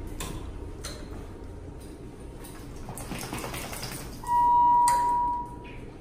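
Elevator arrival signal: one steady electronic beep lasting about a second and a half, coming a few seconds in, after some light clicks and taps.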